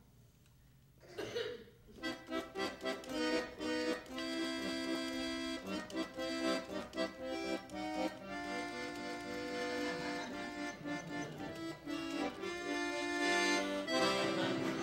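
Accordion music that starts about two seconds in, after a short quiet stretch with one brief sound: short separate notes at first, then held chords.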